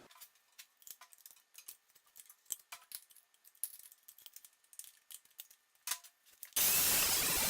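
Irregular small metallic clicks and rattles of tools and metal parts being handled. Near the end a loud steady hiss starts abruptly and drowns them out.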